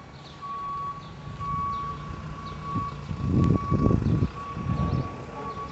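Vehicle reversing alarm beeping, one steady high tone about once a second, over the low steady sound of an engine. A louder rumble swells a little past halfway, then fades.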